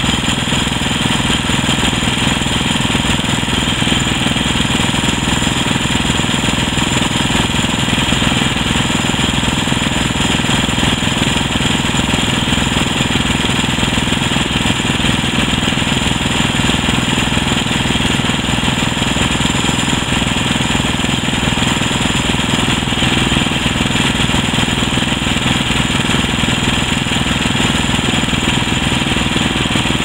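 Portable bandsaw sawmill's engine running loud and steady, with no change in pitch or level.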